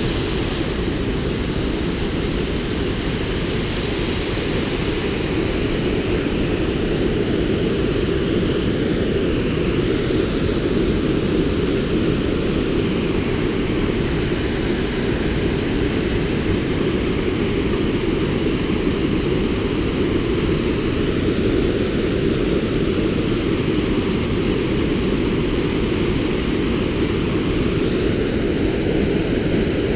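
Waterfall and rapids of a rocky river, white water pouring over boulders in a steady, deep rush.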